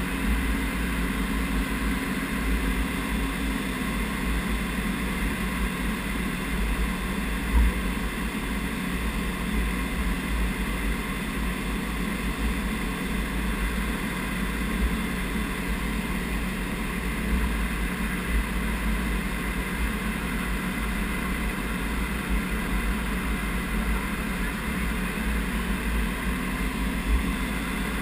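Steady engine and airflow noise heard from aboard a low-flying aircraft: a constant deep rumble with fixed humming tones above it.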